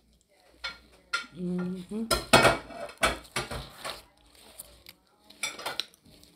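Banana-leaf wrapper of a chocolate moron (Leyte sticky rice cake) rustling and crackling in short bursts as it is peeled back, loudest about two seconds in. Eating sounds and a brief hum are mixed in.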